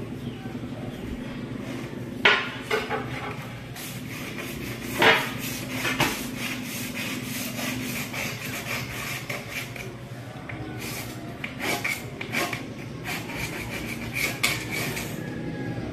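Irregular scraping and sharp clicks of a pointed marking tool and hands working on porcelain tiles, with a few louder knocks.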